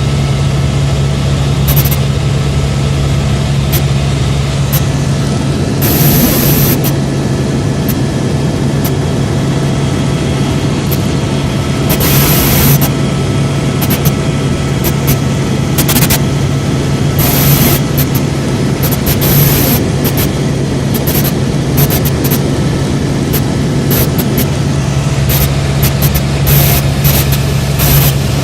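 Helicopter in flight heard from inside the cabin: a loud, steady drone from the rotor and turbine, with brief rushes of noise several times.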